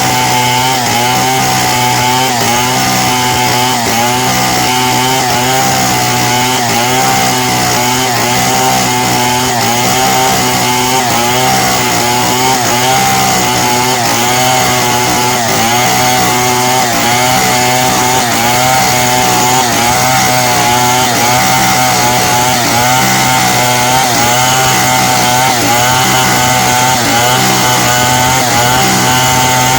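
Chainsaw running steadily at high revs under load while ripping lengthwise through a log to cut beams and boards, its pitch wavering slightly as the cut goes on.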